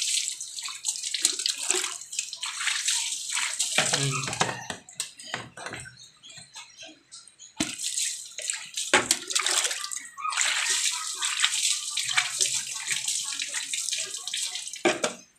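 Water splashing over a small air-cooled motorcycle engine, rinsing off an oxalic acid and dish-soap degreaser. It dies down about five seconds in, comes back strongly about two and a half seconds later, and cuts off just before the end.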